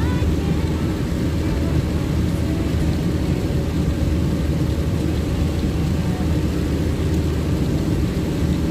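Steady running noise of a vehicle travelling a wet highway in heavy rain: engine and tyre rumble, with an even, unbroken hiss.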